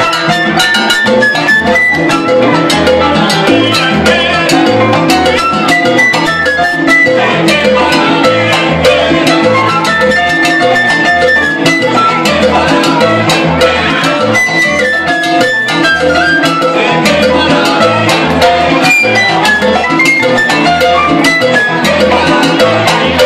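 A live salsa band playing a son: congas and bongos drive a steady rhythm over a pulsing bass guitar and keyboard, while a flute plays the melody in long, high held notes.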